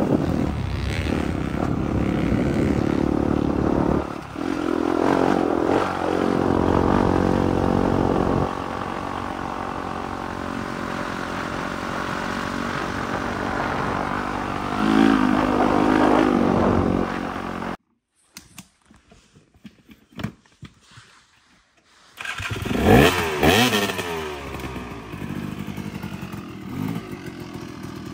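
Dirt bike engine running while the bike is ridden along a trail, its revs changing several times. It cuts off suddenly to near silence for about four seconds. Then a dirt bike engine revs sharply twice and settles back to a lower, steadier running.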